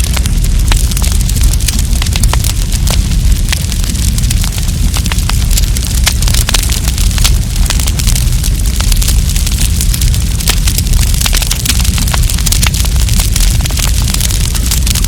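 Wood campfire crackling, with many sharp pops and snaps coming irregularly over a steady low rumble from the burning fire.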